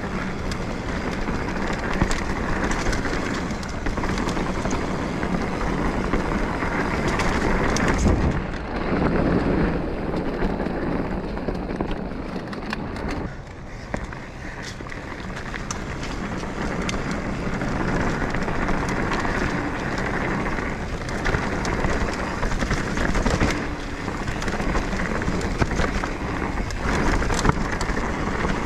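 Mountain bike ridden along a dirt singletrack trail: tyres rolling over the dirt with a steady rush of noise, many small clicks and rattles from the bike, and wind on the microphone.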